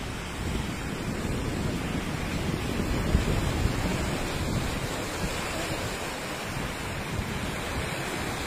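Floodwater rushing down a swollen stream after heavy rain: a steady churning wash of muddy water.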